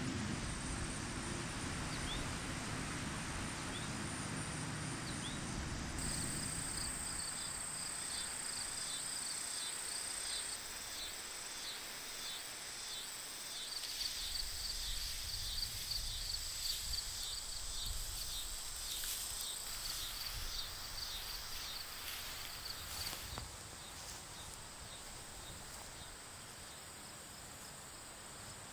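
Summer field insects: a steady high-pitched buzz with rapid pulsing chirps over it, with a low rumble under them for the first few seconds. The chirping stops near the end and the buzz grows fainter.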